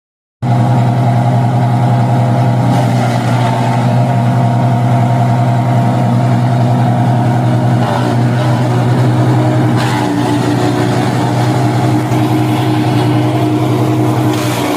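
Wood chipper's engine running steadily at constant speed, with a few brief sharp cracks about eight and ten seconds in and near the end.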